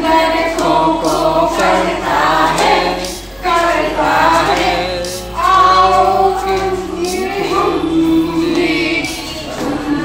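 A group of women singing a Hindi children's rhyme together through a microphone, with held and gliding sung notes over a steady low accompaniment that steps from pitch to pitch.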